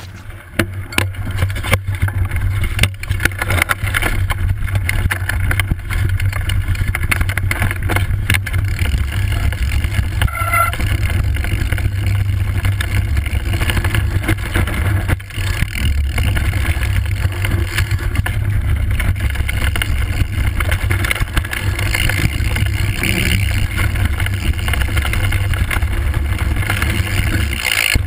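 Heavy wind rumble on an action camera's microphone as a mountain bike rides fast down a dirt trail, with tyre noise and frequent knocks and rattles from the bike over bumps.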